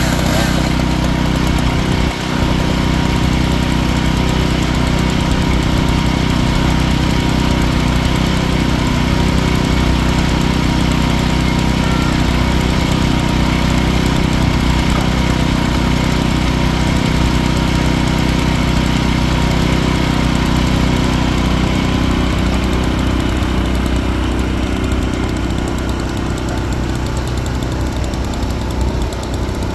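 Portable band sawmill's engine running steadily at a constant speed.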